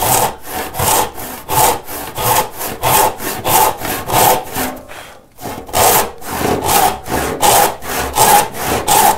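Hand saw ripping along the top edge of a board, establishing the starting kerf for a resaw cut. The strokes come short and quick, about three a second, with a brief pause about five seconds in.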